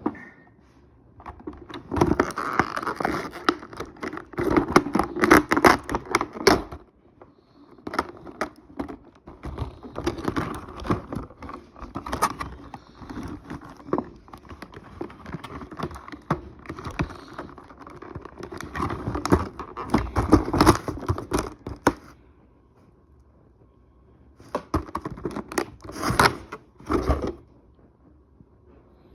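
Hands handling a plastic action figure and its packaging: crackling, clicking and scraping plastic in three bursts, with short pauses between them.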